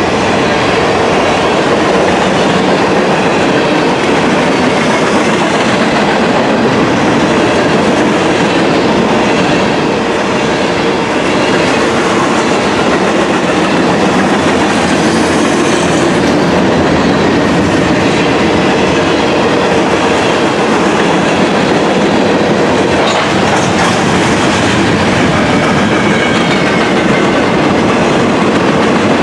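Railroad cars rolling steadily past at close range, the wheels clattering over the rail joints, with a faint high wheel squeal near the end.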